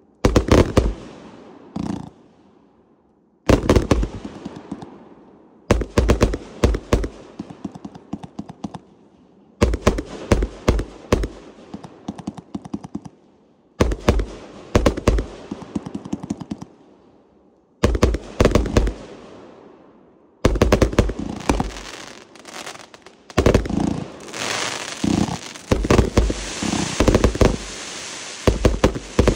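A Proline 1.4G 241-shot compound firework cake (Tartarian Empire) firing its aerial shots: quick clusters of sharp bangs every two to four seconds, each tailing off before the next volley. For the last five seconds or so a dense, steady hiss runs under the bangs.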